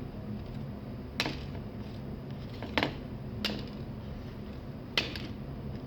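Four light, sharp clicks, spread unevenly, from the trigger of a cheap, unmodified snap mouse trap being prodded without the trap going off.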